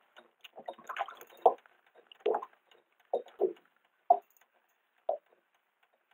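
Water slapping and lapping against the hull of a small boat in a series of short, irregular splashes.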